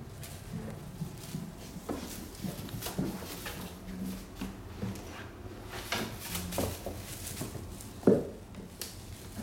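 Norwegian Forest Cat kittens scampering and pouncing on wooden stairs: irregular soft thumps of paws on the treads mixed with the rustle of a shiny plastic wand toy, with one louder thump about eight seconds in.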